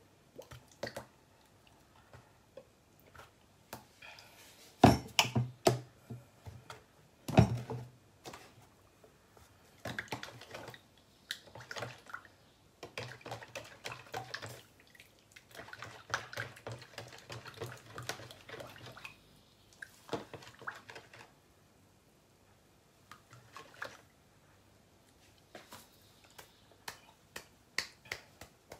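A spoon stirring and scraping wet ingredients into flour in a plastic mixing bowl, with irregular clicks, wet squelches and two sharper knocks about five and seven seconds in.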